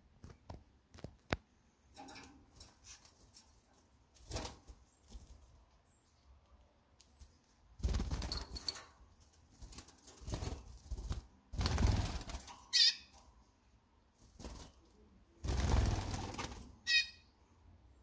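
A canary's wings flapping in three bursts of short flight, the longest about 11 to 12 seconds in. Two brief high chirps come near the flapping.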